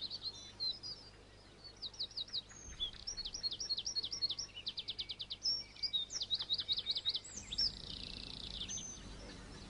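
Birds singing outdoors: a string of quick, high chirps and fast trills, many notes sliding down in pitch.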